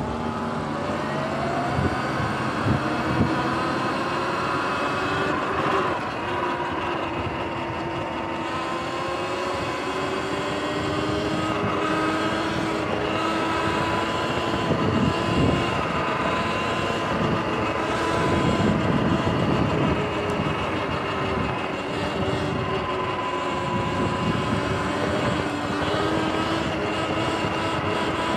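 Sur-Ron electric dirt bike's motor and drivetrain whining, rising in pitch as the bike pulls away during the first couple of seconds, then holding a steady whine at cruising speed over a rushing noise.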